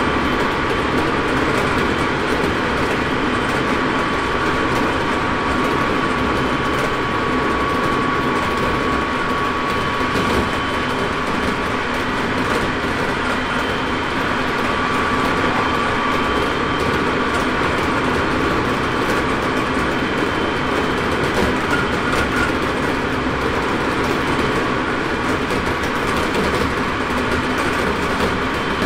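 Inside a Hokuso Railway 7300-series electric train (Toyo late-type GTO-VVVF) cruising at over 100 km/h: steady wheel and rail noise with a steady whine over it.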